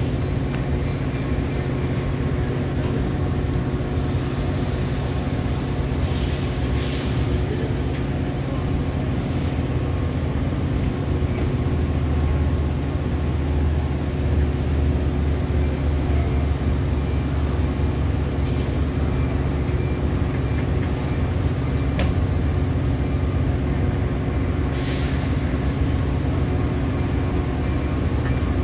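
Diesel-hauled commuter train standing at the platform, its locomotive engine running with a steady low hum that swells somewhat in the middle. There are sharp air-brake hisses about four seconds in and again near the end.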